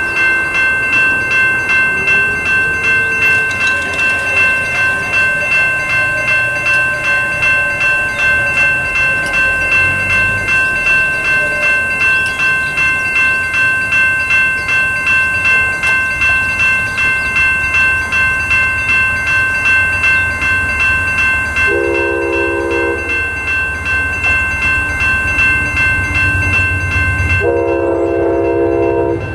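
Railroad crossing warning bell ringing in an even, steady rhythm. The horn of an approaching Amtrak locomotive sounds twice, a short blast about 22 seconds in and a longer one near the end, over the train's growing low rumble.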